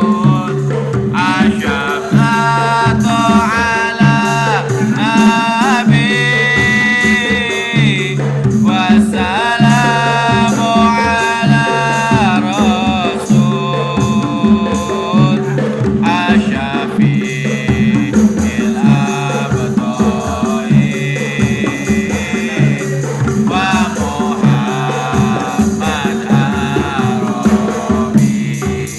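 Sholawat, an Islamic devotional song, sung by a solo voice in long held, wavering melodic phrases over a steady drum rhythm.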